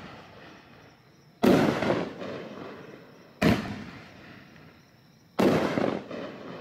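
Consumer 9-shot, 3-inch fireworks cake (Raccoon Fireworks American Anthem, 500 g) firing shells: three loud booms about two seconds apart, each trailing off slowly.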